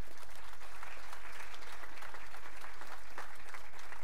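Audience applauding: many hands clapping together.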